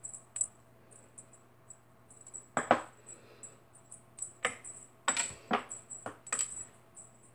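Cat wand toy knocking and clinking against a kitchen drawer and the packets inside it: a string of light, sharp taps, the loudest about two and a half seconds in and several more in quick succession a couple of seconds later.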